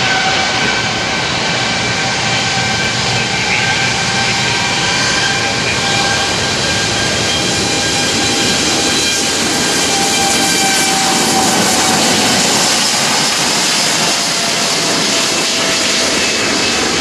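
Boeing 787-8 airliner's jet engines, a loud steady roar with faint whining tones that drift slowly lower, as the aircraft rolls out after landing.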